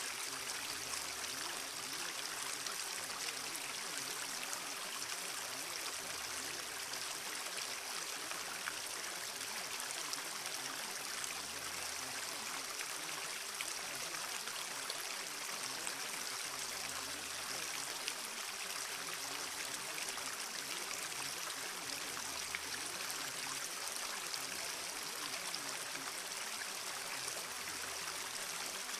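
Steady rushing noise like a flowing stream, with a soft low swell about every five and a half seconds.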